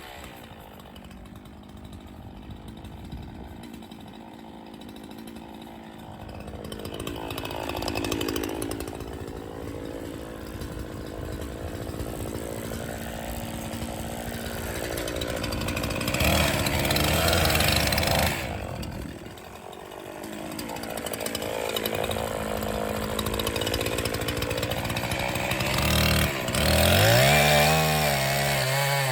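Echo CS501P 50 cc two-stroke chainsaw running, rising to high revs several times and dropping back, loudest about two-thirds of the way through and again near the end.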